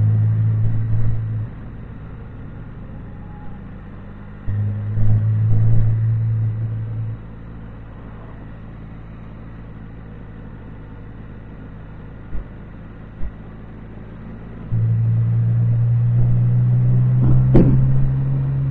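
Can-Am Spyder three-wheeled motorcycle under way: engine and road noise, with a steady low drone that cuts in three times, at the start, midway and for the last few seconds. A couple of soft thumps and one sharp click come near the end.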